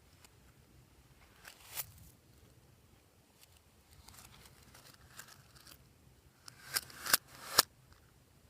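Fluffy slime being pressed and stretched by hand, with soft crackling and a few sharp pops as air pockets burst: one about two seconds in, then three louder ones close together near the end.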